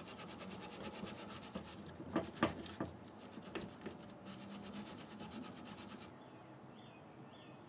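A small wire brush scrubbing rust and old grease off a rear brake caliper bracket clamped in a steel bench vise, cleaning it before new pad clips go on. The strokes are rapid and back-and-forth, with a few sharper knocks in the middle, and they stop about six seconds in.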